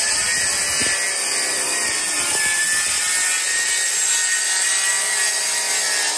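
DeWalt plunge-cut track saw running along its aluminium guide rail, cutting lengthwise through a solid oak worktop with a steady, loud whine.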